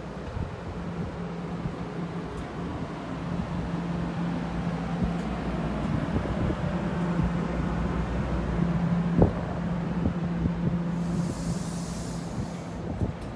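NJ Transit double-deck passenger coaches rolling slowly past: a steady low rumble and hum with scattered clicks and one sharp clack about nine seconds in. A short burst of air hiss comes near the end.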